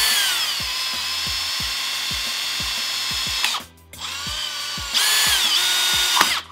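Cordless drill spinning a 25 mm hole saw through a plastic headlight dust cap. The motor whine drops in pitch as the saw bites, stops a little over three seconds in, then starts again and runs louder before cutting off near the end.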